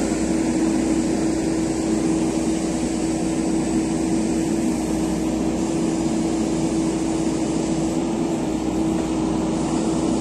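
JCB backhoe loader's diesel engine running steadily at high revs under load as it tows a stuck pickup truck out by a rope, a constant engine drone with a strong steady hum.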